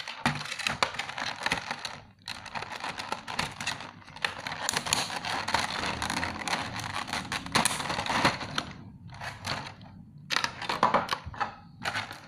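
Clear plastic blister packaging crinkling and crackling as it is handled and pulled apart, a dense run of small clicks and crackles with a brief pause about two seconds in.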